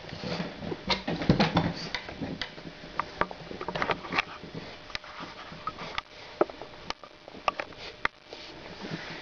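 Adult French bulldog sniffing and snuffling at her puppies, short noisy sniffs mixed with scattered sharp clicks and rustles, busiest about a second in.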